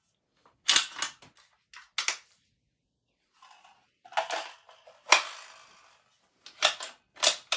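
Bolt of a Savage 110 short-action rifle being slid back into the receiver and worked: about six sharp metallic clacks and clicks, one about five seconds in followed by a brief sliding rasp.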